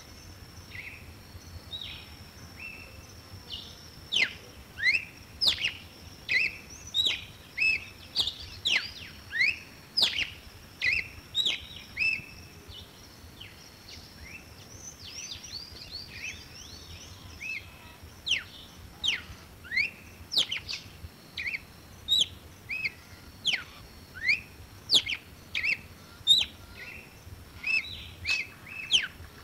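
Red-cowled cardinal singing: short, quick downward-slurred whistled notes repeated about once or twice a second in phrases, softer for a few seconds in the middle. A steady thin high tone runs underneath.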